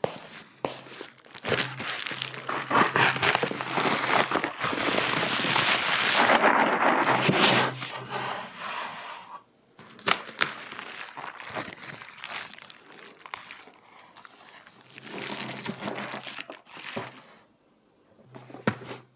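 Bubble wrap and plastic packing crinkling and rustling as a parcel is unwrapped by hand. The crinkling is dense and loud for several seconds near the start, then gives way to lighter handling noises, with another bout of rustling later.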